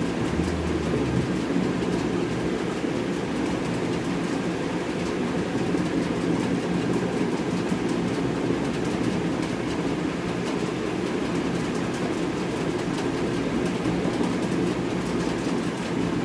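Steady, even rumbling background noise at an unchanging level, with no speech.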